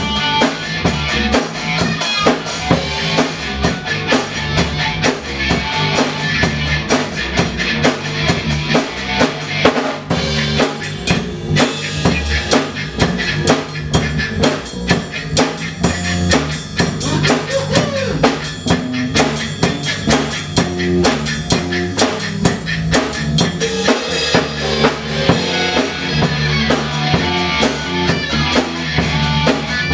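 Rock band playing live in the room: a drum kit keeping a steady beat with bass drum and snare, under electric guitars.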